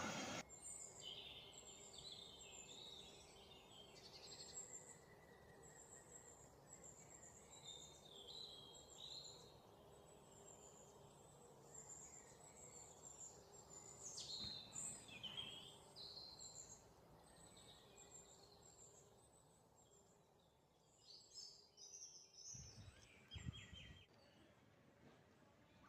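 Faint outdoor background with birds chirping in short, high notes on and off. A few soft low thuds come near the end.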